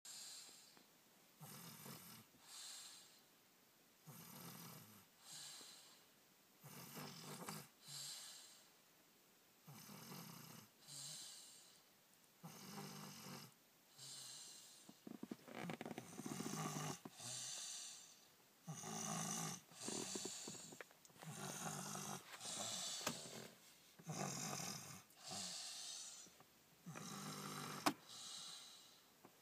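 Snoring: a rasping snore on each breath in and each breath out, one pair about every two and a half to three seconds, growing louder about halfway through. One sharp click near the end.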